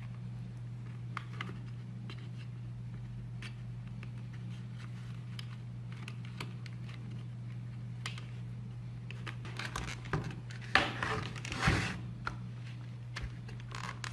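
Faint, scattered clicks and scrapes of a keyboard's plastic case and parts being handled and screwed together, with a denser flurry of clicks about ten seconds in. A steady low hum runs underneath.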